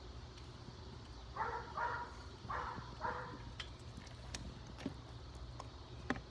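A dog barking four times in quick succession, followed by a few light clicks and taps.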